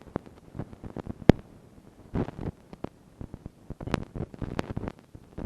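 Irregular sharp clicks and knocks, one louder crack a little over a second in, with a brief muffled rumble about two seconds in.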